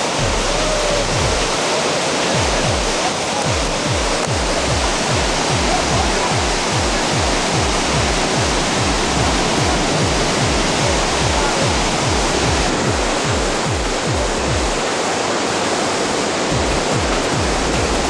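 Athirappilly Falls in full flow: the steady, loud roar of a large volume of water plunging onto rocks, without a break.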